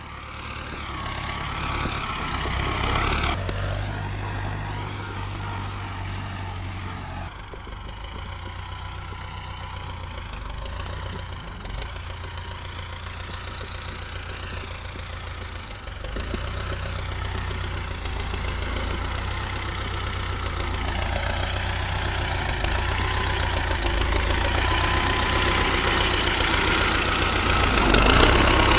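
Wheeled tractor engine running steadily under load while pulling a rear-mounted rotary finger weeder through potato rows. It grows louder toward the end as the tractor comes close.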